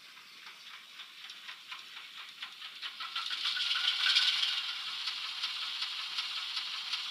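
Model Pioneer Zephyr's sound decoder playing a diesel engine start-up through its small onboard speaker. Evenly spaced clicks swell about three seconds in into a louder, steady rattling run.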